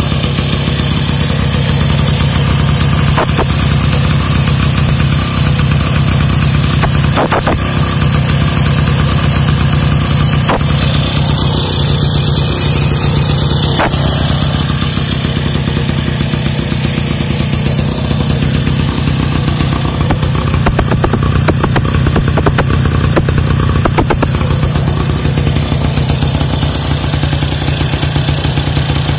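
Vintage Monet-Goyon moped's small single-cylinder engine running steadily at idle.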